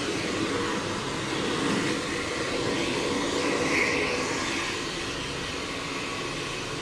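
Hand-held hair dryer running steadily, blowing air onto a freshly bathed cat's fur to dry it.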